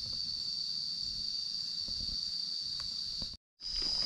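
Steady high-pitched drone of forest insects, with faint low rustling underneath; the sound breaks off for a moment near the end.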